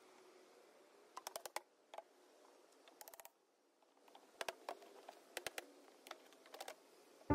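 Faint, scattered clicks and taps in short quick clusters, about once a second: small metal tools and hardware being handled.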